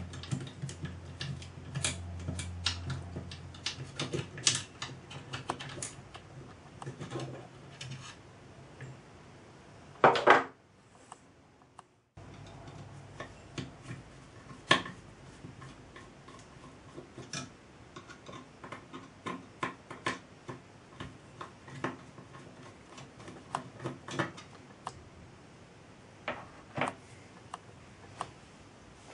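Light clicks and taps of small hand tools and metal parts as the brass cylinder and fittings are put onto a miniature model steam traction engine, with one louder clatter about ten seconds in.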